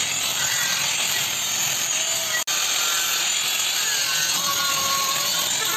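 Steady, loud, harsh hiss of metal repair work on a broken motorcycle alloy wheel. It breaks off for an instant about two and a half seconds in.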